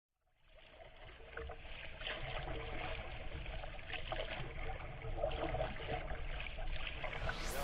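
Outdoor lake ambience fading in: water noise with a low rumble and a faint steady hum, like a distant motorboat.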